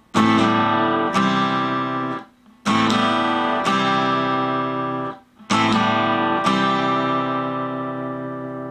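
Acoustic guitar strumming chords in a slow folk pattern. Each phrase is a full strum with a lighter accent strum about a second later, left to ring. The chords change between A minor and C with the left hand lifted off the strings, leaving two brief silences, and the last chord rings out and fades near the end.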